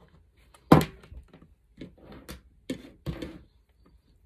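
Handling noise from working a plastic wall light switch and its cables by hand: one sharp knock about a second in, then lighter clicks and short rustles of plastic and wire.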